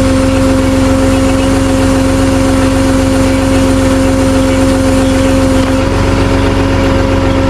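Tow truck engine running at a steady high idle, a constant droning hum that shifts slightly in pitch about six seconds in.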